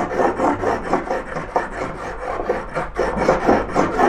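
Miniature brass hand plane being pushed back and forth along a pine block in quick, short strokes, its blade scraping the wood with a rasping sound several times a second as it takes fine shavings.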